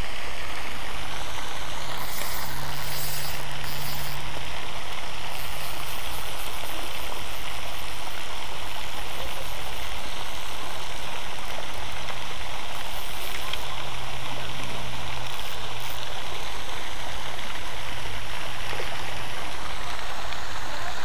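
Steady rushing of water from the pond's spray fountain, with a low hum that comes and goes.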